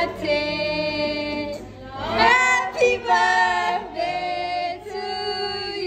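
High voices singing a melody in long held notes.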